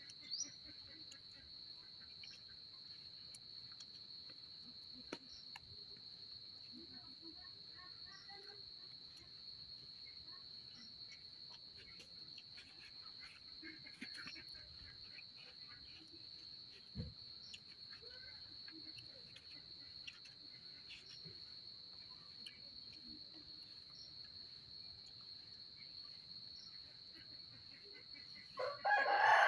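Crickets chirping in one steady, unbroken high trill, with a rooster starting to crow loudly near the end.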